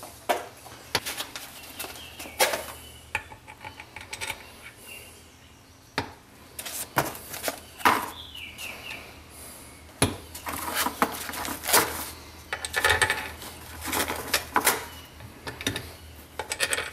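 Irregular light clinks, clicks and knocks of metal engine parts being handled: the cast crankcase cover of a Kawasaki four-stroke engine being seated on the block, with its bolts set in and started by hand.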